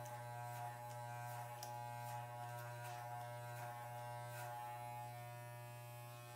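Corded Wahl electric hair clippers running with a steady buzz as they are drawn over the neck hairs, with faint irregular ticks.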